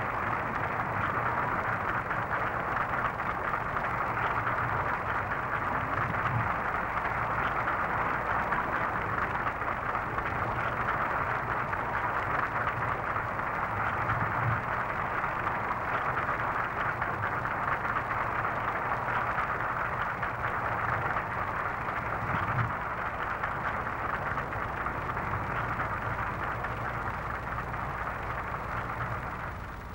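Steady rushing hiss with a faint low hum underneath, unchanging until it drops away at the very end.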